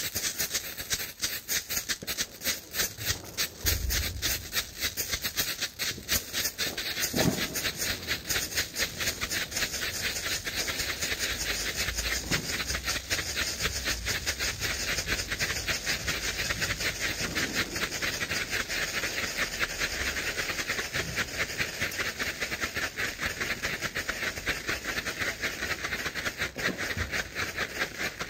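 Three Nico Feuerwerk red strobe bengal flares (Bengalfeuer Rot-Blink) burning together: a steady hiss shot through with rapid crackling pops as the strobe composition flashes.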